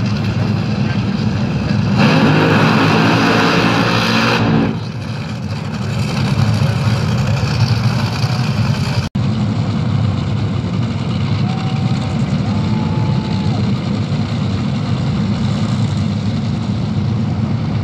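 Top Fuel dragsters' supercharged nitromethane V8 engines running at the starting line. A louder, higher blast of throttle comes from about two to four and a half seconds in, then the engines settle to a steady low rumble. The sound cuts out for an instant about nine seconds in.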